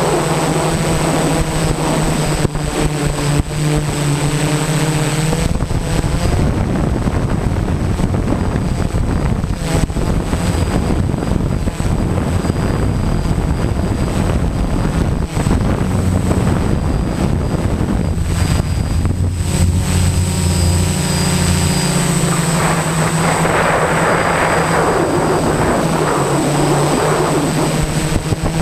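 A camera drone's electric motors and propellers buzzing steadily in flight, with the pitch shifting up and down several times as the motor speeds change. A thin high whine runs through it.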